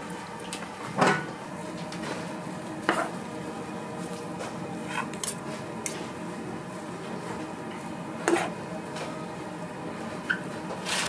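Metal utensils and pans clanking: a few sharp knocks, loudest about a second in and about eight seconds in, with lighter clinks between, over a steady background hum.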